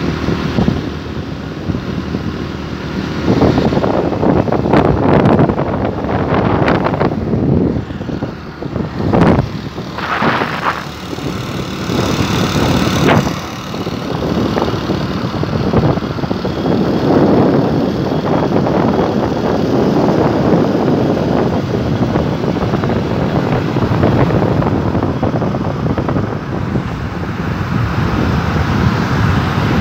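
Wind rushing and buffeting over a phone microphone on a moving motorcycle, loudly and unevenly, with the motorcycle's engine and passing road traffic mixed in beneath.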